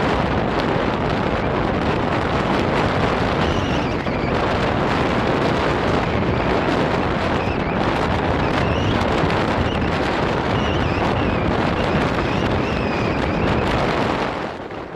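Heavy wind buffeting on the microphone with road rush from a Niu M Plus Sport electric scooter riding at about 40 km/h, with a faint wavering high whine in the middle; the noise dips about a second before the end.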